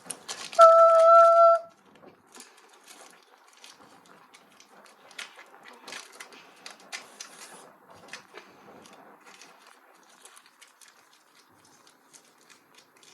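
Grundig washing machine giving one steady beep about a second long, its start signal. Light scattered clicks and knocks follow.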